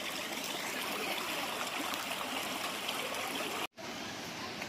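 Steady rush of running water from a stream, even and unbroken; it breaks off for an instant near the end, then carries on.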